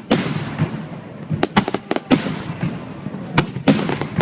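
Aerial fireworks shells bursting in quick succession: about nine sharp bangs, with crackling between them.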